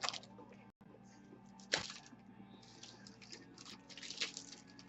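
Faint handling sounds of a trading card pack being opened: a single sharp crack about two seconds in, then soft crinkling and rustling.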